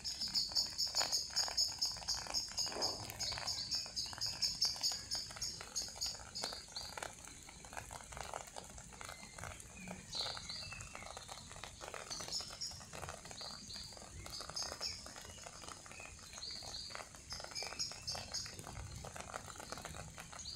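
Small songbirds chirping in quick repeated high notes, busiest for the first six seconds and then in scattered short bursts, over a light patter of raindrops.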